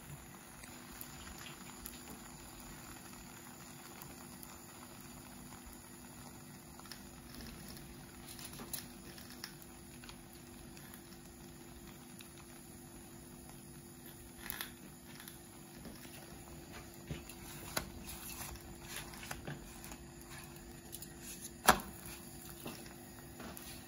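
Crepe batter sizzling faintly in a hot nonstick frying pan, a soft steady crackle with scattered small pops. A single sharp knock comes near the end, as the crepe in the pan is handled.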